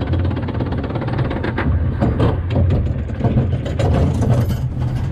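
Bobsled coaster car rolling through its wooden trough: a steady low rumble from the wheels, with a run of rattling knocks and clatter from about two seconds in.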